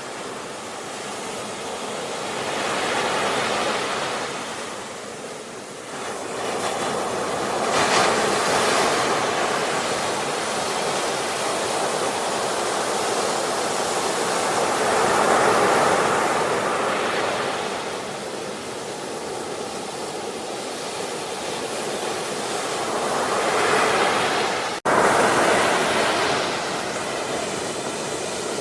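Sea waves washing onto a shore: a steady rush of surf that swells and falls back every few seconds, with a split-second gap near the end.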